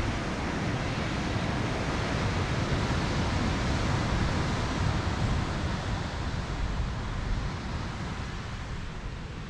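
Wind buffeting the microphone with a steady rumble, over the wash of surf breaking on the shore far below.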